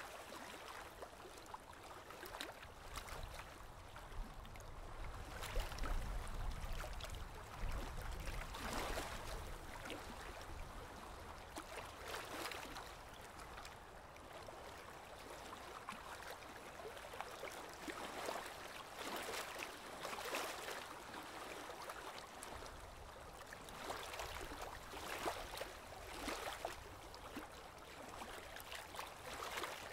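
Aquarium water trickling and gurgling, with small irregular splashes and a low rumble that comes and goes.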